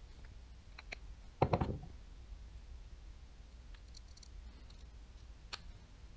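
Small reel parts and tools being handled during a baitcasting reel's disassembly: a few light clicks, with one louder brief clatter about a second and a half in.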